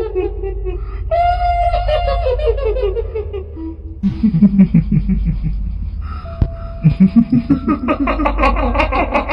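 Kuntilanak ghost laughter: a shrill, pulsed "hihihi" cackle that falls in pitch, heard twice, then lower, deeper pulsed laughs, one rising near the end, over a steady low hum.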